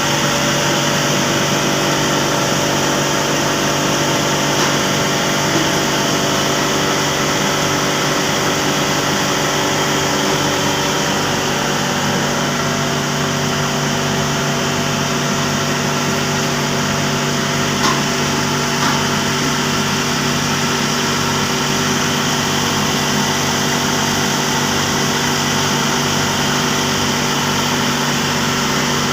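Steam boiler plant machinery running: a steady, loud machine hum made of several constant tones, with no change in pace.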